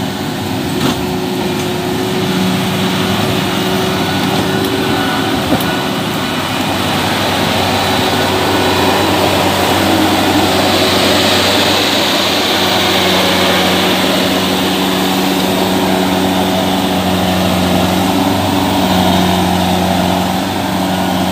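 Kubota crawler combine harvester's diesel engine running steadily as the machine drives along a dirt track, getting louder as it passes close by.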